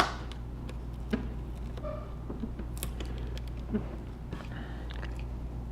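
A sharp click at the start, then faint scattered taps and clicks of small electronic parts being handled during an iPod touch repair, over a steady low hum.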